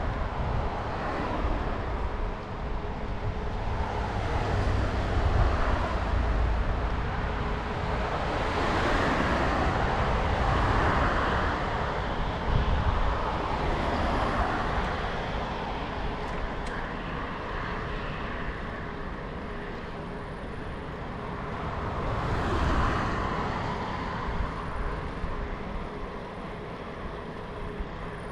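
Wind rushing and buffeting over an action camera's microphone as a bicycle rides along a smooth asphalt path, with rolling road noise underneath. The rumble rises and falls in several swells.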